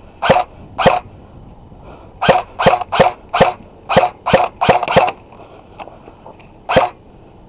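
Airsoft gun fired semi-automatically: about a dozen sharp pops in irregular groups, a quick cluster in the middle and a last single shot near the end.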